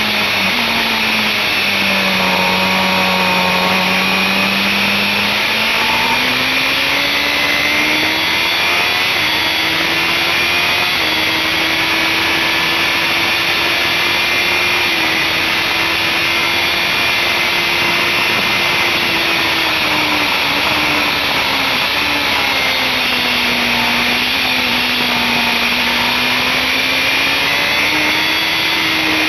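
BMW S1000RR's inline-four engine running hard at high revs on track, under heavy wind rush on the onboard camera's microphone. The engine note sinks for a few seconds early on, climbs and holds high through the middle, dips again later, and rises near the end as the rider works the throttle through corners and straights.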